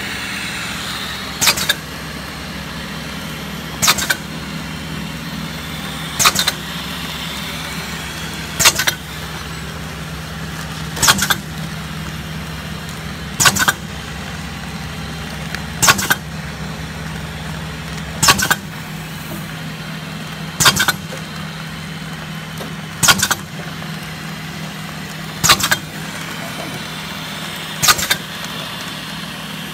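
Stick candy production machine running with a steady hum, cycling with a sharp double clack about every two and a half seconds.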